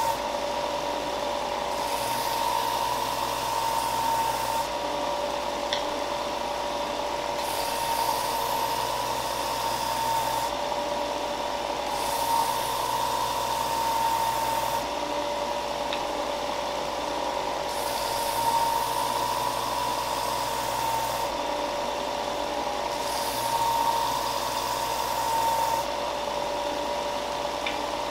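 Benchtop belt sander running with a steady motor-and-belt hum. Wooden coasters are pressed to the moving sanding belt in about five passes of a few seconds each, and each pass adds a sanding hiss over the hum.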